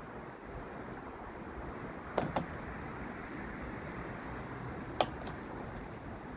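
Sharp plastic clicks from trim clips being worked loose on a Mazda MX-5's rear interior panel: two quick clicks about two seconds in and a louder single click about five seconds in, over steady low background noise.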